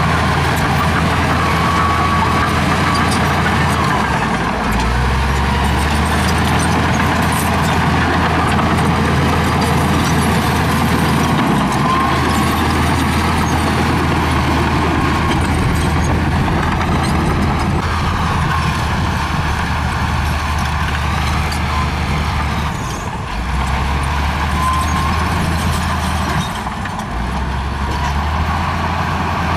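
LiuGong crawler bulldozer's diesel engine running under load as the dozer pushes dirt with its blade, its low note shifting in pitch a few times as the load changes. A thin high whine runs over it throughout.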